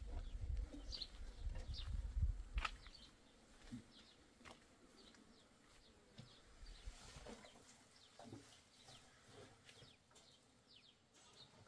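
Small birds chirping repeatedly in short calls, over a low rumble during the first few seconds. A single sharp click comes about two and a half seconds in.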